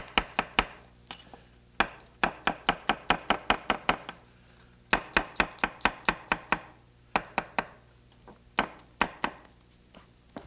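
Chef's knife slicing mushrooms on a wooden cutting board: quick runs of sharp knocks, about four a second, as the blade strikes the board, with short pauses between runs and a few single strokes near the end.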